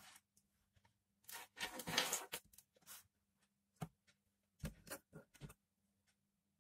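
Scratchy rustling and rubbing as thin earphone wires and a small desoldered earphone speaker are handled and pulled apart on a tabletop. The noises come in short clusters, loudest about two seconds in, with a single click near four seconds. A faint steady hum runs underneath.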